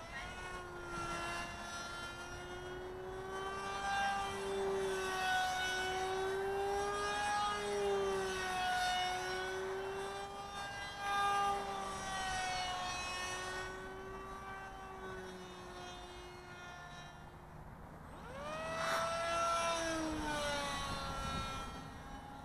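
Motor and propeller of a radio-controlled EPP foam Simitar-style flying wing in flight: a steady whine whose pitch wavers slowly up and down as the plane circles. About 19 seconds in, the pitch jumps up sharply and it gets louder, a burst of throttle.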